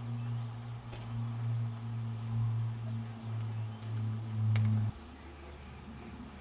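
A low, steady hum that cuts off suddenly about five seconds in.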